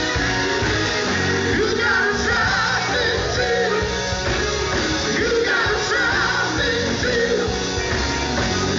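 Live gospel quartet singing with a band: men's voices over electric guitar, bass, drums and keyboards, with the lead voice wavering up and down above the backing.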